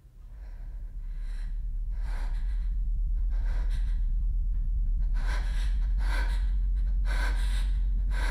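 A woman's frightened breathing: short, gasping breaths in and out about once a second, growing stronger after about five seconds. Under it a deep low drone fades in over the first couple of seconds and then holds steady.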